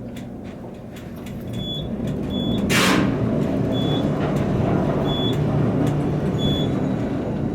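Traction elevator car in motion: a low running rumble builds up and holds steady, with short high beeps about once a second and one brief hiss about three seconds in.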